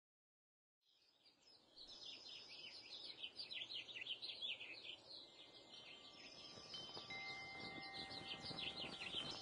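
Many small birds chirping in rapid, repeated downward chirps over faint background noise, fading in after about a second of silence. A couple of faint steady ringing tones join in near the end.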